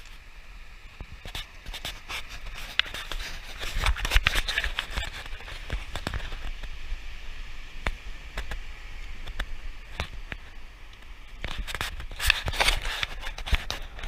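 Irregular scraping, scratching and sharp clicks over a low rumble, busiest about four seconds in and again near the end.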